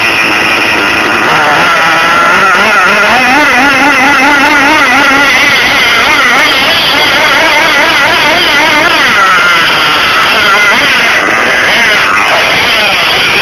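RB S7 nitro engine in an Ofna LX RC car running on its sixth tank of fuel during break-in. It idles high and loud with a fast, constantly wavering warble, and the pitch climbs a little a few seconds in.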